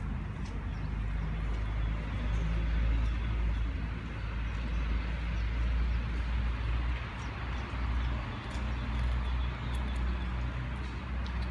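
Outdoor background noise: a steady low rumble that swells and eases, with an even hiss above it.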